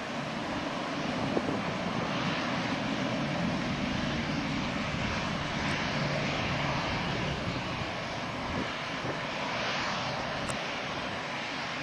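Boeing 757-200's twin jet engines climbing away after takeoff: a steady broad jet noise that swells and eases slightly as the airliner recedes.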